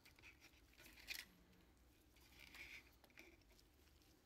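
Near silence broken by a few faint light taps and rustles as the opened plastic trackball housing and its parts are handled with gloved hands; the clearest tap comes about a second in.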